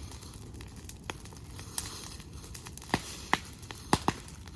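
Brush bonfire crackling, with irregular sharp pops over a steady hiss.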